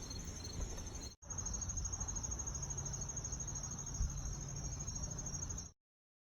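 Crickets chirping in a steady, evenly pulsing high trill over a low rumble, broken by a brief dropout about a second in and cut off abruptly near the end.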